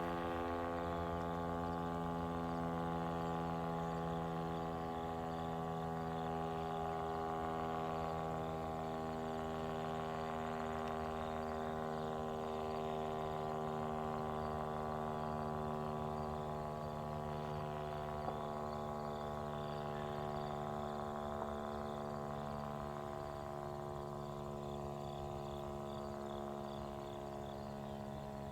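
Federal Signal STH-10 dual-tone rotating warning siren winding down after its test: a low chord of steady tones that fades slowly, swelling and ebbing gently as the rotating head turns.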